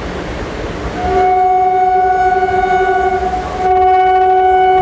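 Electric train horn: a long steady blast starts about a second in, breaks off briefly and sounds again, over the running noise of a moving train.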